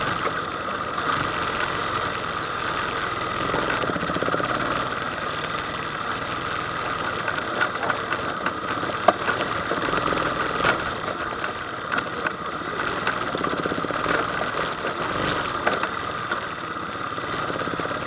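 ATV engine running steadily while riding a trail, with scattered sharp knocks through the middle, the loudest about nine seconds in.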